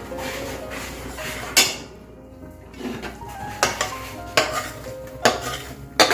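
A spatula stirring and scraping coarse urad dal flour roasting in ghee in a pan, with about five sharp clanks of the spatula against the pan.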